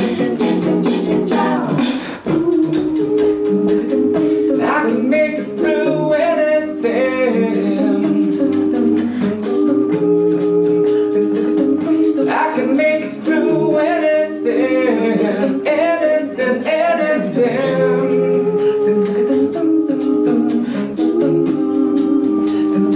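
A cappella vocal group singing sustained chords in close harmony over a steady ticking beat.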